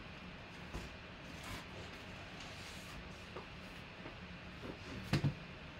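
Faint room hiss with light scattered rustles and, about five seconds in, a quick double knock: paper card-pack envelopes being handled and set down on a table.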